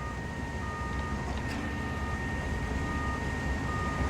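Diesel engines of a concrete pump truck and ready-mix trucks running steadily with a low rumble. A high steady whine sits over them, and a backup alarm beeps about once a second.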